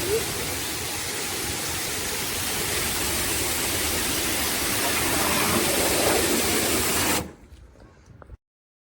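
QSMYOYE 2200 W electric pressure washer spraying a high-pressure water jet, a steady hiss of spray that cuts off suddenly about seven seconds in.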